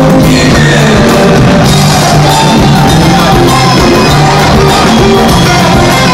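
Live band playing loudly: a bass guitar line under congas and hand drums, with voices singing over it.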